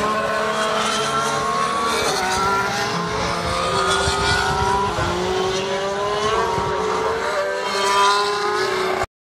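Formula One cars' 1.6-litre turbocharged V6 hybrid engines accelerating along the track, several cars overlapping. Each engine's pitch climbs and drops back again and again as it shifts up through the gears. The sound cuts off suddenly near the end.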